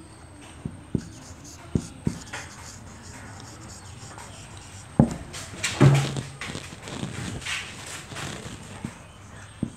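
Marker pen writing on a whiteboard: scattered taps of the tip against the board and scratchy strokes, with a louder knock about five seconds in.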